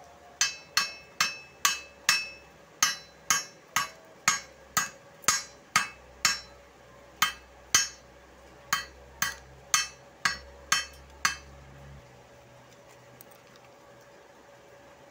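Chipping hammer knocking slag off a freshly stick-welded bead on steel plate: about twenty sharp metallic strikes, roughly two a second, that stop about four seconds before the end.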